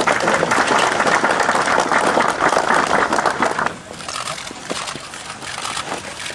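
Crowd applauding, then cut off abruptly about three and a half seconds in, followed by quieter outdoor background with scattered light clicks.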